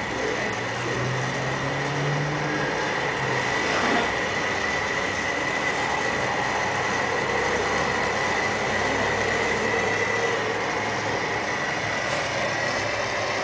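Gas torch flame hissing steadily, with a faint high whistle running through it, as it heats a copper pipe and tee joint for soldering. A light knock about four seconds in.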